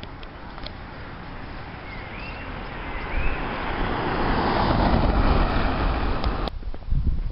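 A car passing on the road, its tyre and engine noise swelling over a few seconds and cut off abruptly near the end. A bird chirps twice about two seconds in.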